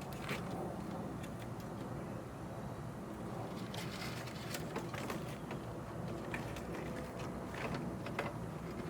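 Scattered light clicks and knocks of wiring and plastic door parts being handled, over a steady low hum.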